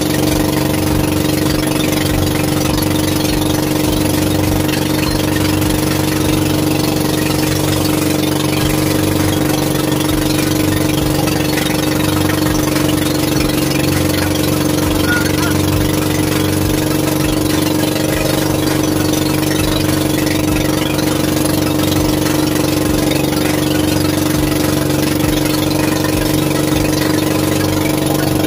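Fishing boat's engine running loud and steady at one even speed.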